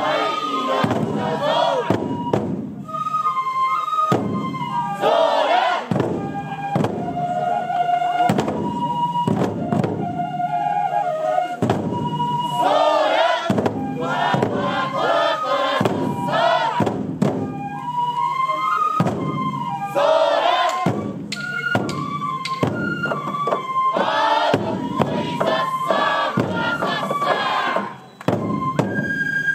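Toramai festival music: barrel taiko drums beaten in a steady rhythm with thick sticks, bamboo transverse flutes (fue) playing a stepping melody of held high notes, and voices shouting calls over the top. The music drops out briefly near the end.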